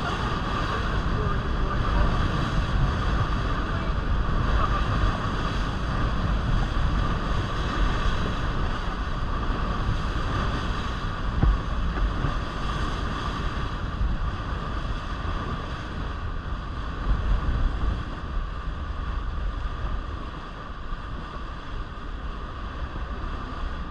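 Wind buffeting the microphone on a moving boat, over the steady drone of the boat's engine; the level eases slightly near the end.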